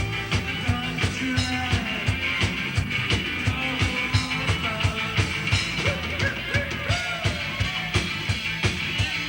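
Live rock-and-roll band playing, with the drums keeping a fast, steady beat.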